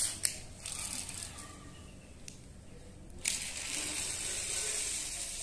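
Small toy police car pushed along a tiled floor, then released and rolling away, its wheels making a steady high hiss on the tiles after a click about three seconds in.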